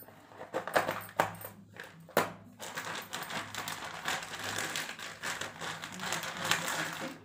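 Packet of cotton lamp wicks being handled, its wrapper crinkling and rustling, with a few sharp clicks in the first couple of seconds.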